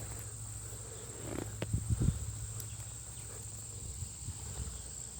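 Steady high buzz of crickets and other insects over a low rumble, with a short cluster of knocks and rustles about a second and a half in as potatoes are handled and picked up off the ground.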